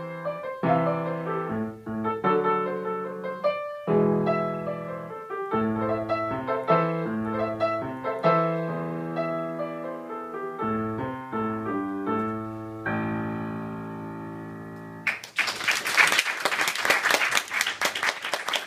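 Solo piano playing a tune in chords and melody, closing on a held chord that dies away, followed by applause from about three seconds before the end.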